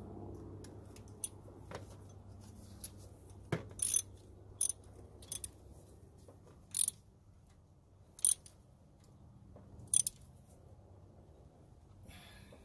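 Socket ratchet clicking in six short bursts, roughly one every second or so from about four seconds in, as a fastener on the power steering pump bracket is turned. A faint low steady hum runs underneath.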